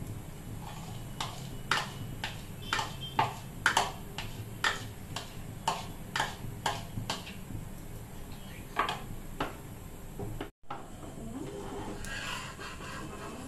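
A metal spoon clicking and scraping against a plastic bowl as beaten egg is worked out into a frying pan: a quick, irregular run of sharp clicks, about two a second, that stops a little after nine seconds in. A steady low hum lies under it.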